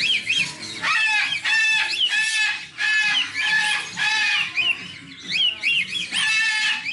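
Umbrella cockatoo yelling: a run of loud, harsh calls about a second apart, its contact-calling for attention when its person walks away. Short high chirps from other birds run underneath.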